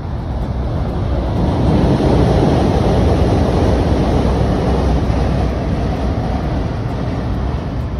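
Freight train crossing a steel truss railway bridge: a loud, steady rumble that swells about two seconds in and eases slightly toward the end.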